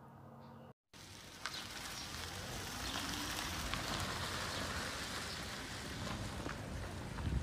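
After a brief cut-out about a second in, a steady rough hiss of tyres rolling over a gravel driveway as a battery-electric converted Maruti 800 pulls away, with no engine note.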